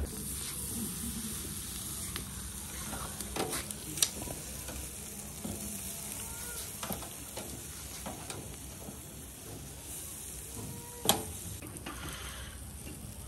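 Tandoori chicken pieces sizzling on a charcoal grill, a steady hiss with small crackles. Two sharp clicks stand out, about four seconds in and, loudest, about eleven seconds in.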